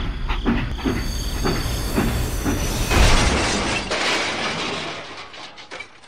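Train clacking rhythmically over the rails about twice a second, then a loud hiss about three seconds in that slowly fades away.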